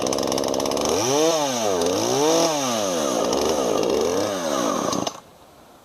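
Husqvarna 236 two-stroke chainsaw engine running, its speed rising and falling several times, then cutting off suddenly about five seconds in. The owner finds it running a bit rich, with the idle not set right, and means to check the carburettor.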